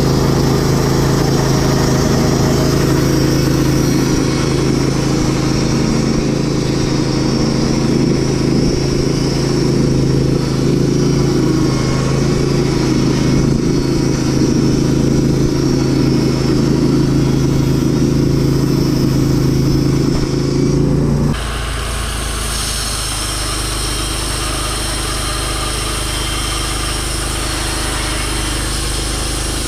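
Timber King band sawmill running, its engine and blade cutting through a cedar log with a steady, loud drone. About two-thirds of the way through, the sound drops suddenly to a quieter, lighter running.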